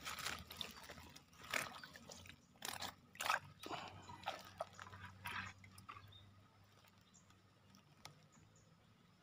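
Close, irregular rustling and crackling handling noise, about a dozen short bursts in the first six seconds, then only faint ticks.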